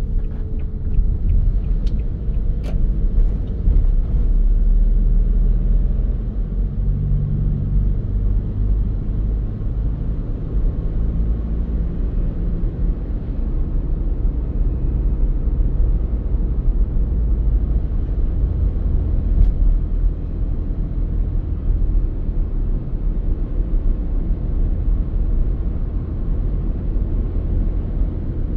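Car on the move: steady low road and engine rumble, heard from inside the cabin.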